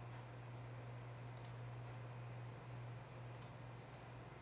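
Faint computer clicks while working on a file dialog: one about a second and a half in, then two close together near the end, over a low steady hum.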